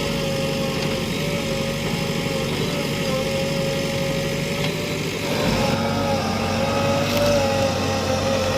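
JCB 3DX backhoe loader's diesel engine running steadily with a wavering whine over it, growing a little louder and fuller about five seconds in.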